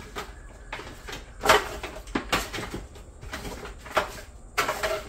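Disposable aluminium foil tray crinkling and knocking as gloved hands toss and rub seasoning into meat in it, in irregular sharp crackles that are loudest about a second and a half in and again near four seconds.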